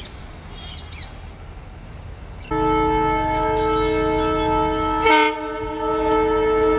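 A WDP-4D diesel locomotive sounds its multi-tone horn. The long steady blast starts abruptly about two and a half seconds in, over a low engine rumble, and a brief harsh burst cuts across it about five seconds in. Before the horn, a few birds chirp faintly over the rumble.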